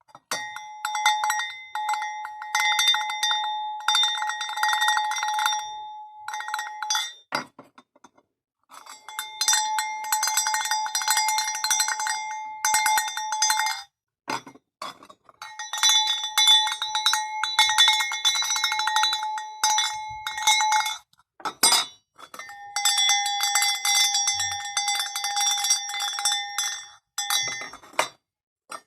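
Clapper bells for hunting dogs (botalo-type bells for Brittany spaniels) clanging rapidly and continuously in four bursts of a few seconds each, with short breaks between them.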